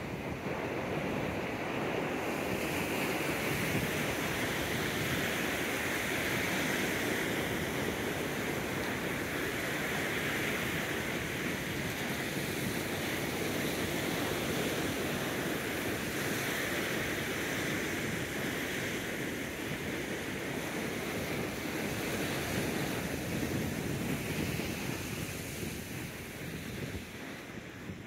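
Ocean surf washing ashore, a steady rushing noise that swells and eases over several seconds, with wind buffeting the microphone.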